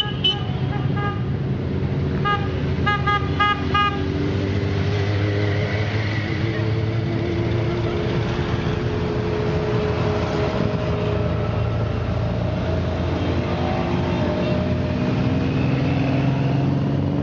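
A procession of motorcycles riding slowly past, engines running steadily, their pitch rising and falling as the bikes pass. In the first four seconds a horn sounds a quick run of short toots.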